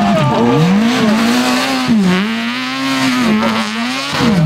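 BMW 3 Series Compact rally car's engine revving hard at full throttle, its pitch climbing and dropping back sharply about three times at the gear changes.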